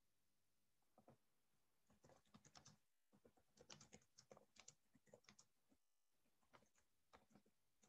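Faint typing on a computer keyboard: irregular runs of quick key clicks with short pauses between them.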